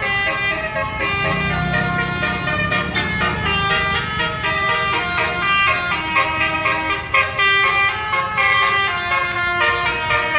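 Indonesian bus 'telolet' multi-tone horns playing a tune of short, stepping notes, loud and continuous, with a low rumble underneath during the first half.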